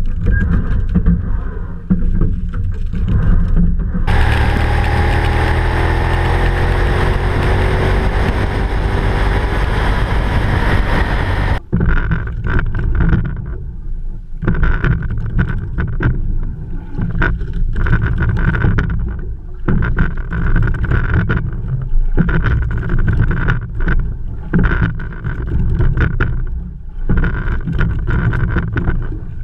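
A kayak paddled across choppy water: wind buffets the microphone while water rushes and splashes along the hull. A louder rushing stretch lasts several seconds in the first half and stops suddenly. After that the water noise swells unevenly, roughly once a second.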